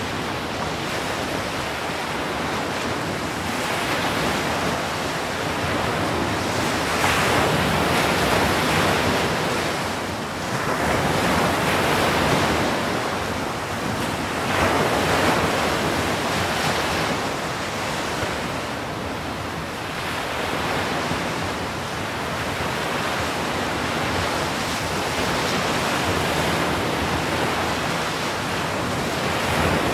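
Ocean surf: waves breaking and washing in, a steady noise that swells louder every few seconds as each breaker comes in.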